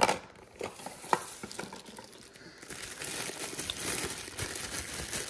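A few light clicks and knocks of hands working in a small cardboard box, then from about three seconds in a steady crinkling of a thin LDPE plastic bag being handled.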